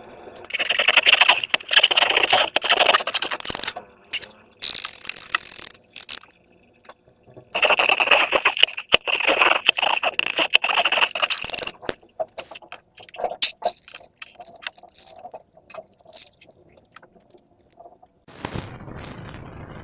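Slime being squished and stretched by hand, making bursts of dense, crisp crackling and clicking a few seconds long. Near the end a steady rushing hiss begins.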